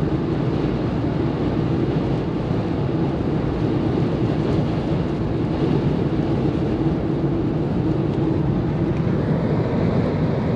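Steady driving noise inside a car's cabin on a wet road: the engine drones and the tyres hiss on the rain-soaked pavement, holding an even level throughout.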